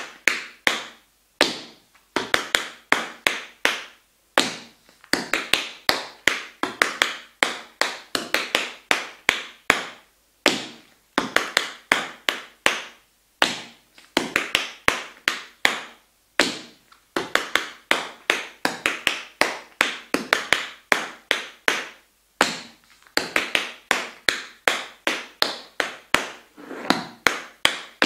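Tap shoes' metal taps striking a wooden floor in a tap dance routine: quick runs of crisp clicks in phrases of a second or two, with short pauses between phrases.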